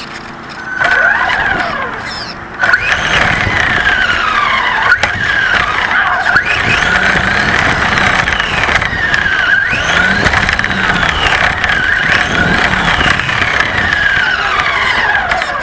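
Radio-controlled car's motor whining, its high pitch repeatedly rising and falling as the throttle is worked on and off.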